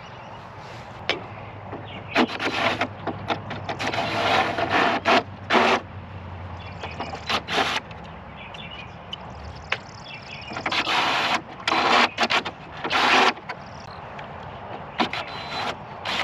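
Irregular scraping, rattling and clattering of an old gutter downspout and its brackets being worked loose and pulled off. Under it runs a low steady hum that fades out about halfway through.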